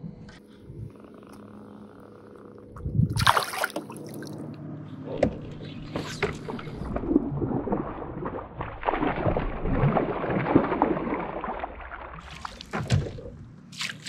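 Water splashing as a hooked largemouth bass thrashes at the surface beside a kayak and is brought to the net. A sharp splash comes about three seconds in, and a longer spell of churning splashes follows in the second half.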